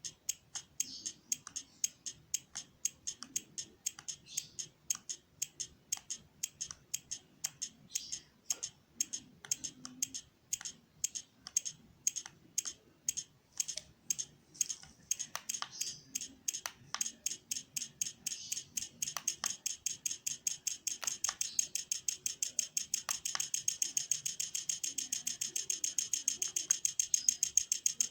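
Inverter welding machine with a PWM pulse module added, ticking in a steady rhythm at its pulse rate. It starts at about two clicks a second and speeds up to four or five a second in the second half, with a steady high hiss rising under the clicks as the pulse frequency is raised.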